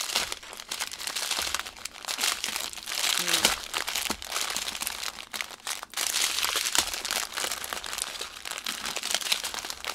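Small clear plastic bags of diamond painting drills crinkling and rustling as a stack of them is handled and shuffled by hand, in a continuous irregular crackle.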